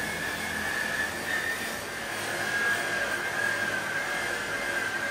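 Vevor electric metal polisher with an abrasive stripping wheel whining steadily as it grinds old paint off an aluminum truck cab panel. Its pitch dips slightly about halfway through, then recovers.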